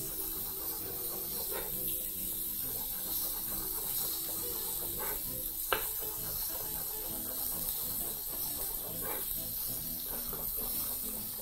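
Chef's knife dicing tomato on a bamboo cutting board: a few sharp knocks of the blade on the wood, the loudest about halfway. Under it, a steady quiet sizzle from pork ribs grilling on a hot griddle.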